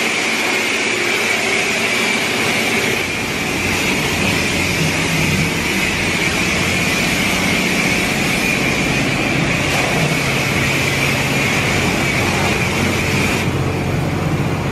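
A self-serve car wash's high-pressure wand spraying water onto a pickup, a steady loud hiss over a low hum. The spray stops about a second before the end.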